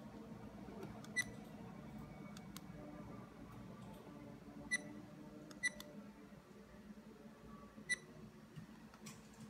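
Car dash camera giving four short, high electronic beeps at uneven intervals as its buttons are pressed, over a faint low room hum.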